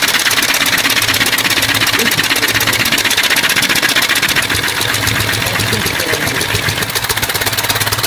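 Homemade six-cylinder compressed-air engine with pushrod-operated intake and exhaust valves, running with a rapid, even mechanical beat. The level dips a little and the beat turns less even about halfway through.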